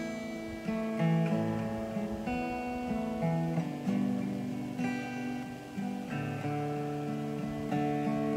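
Acoustic guitar playing slow chords on its own, a new chord about every second, as an instrumental interlude between the verses of a sung prayer response.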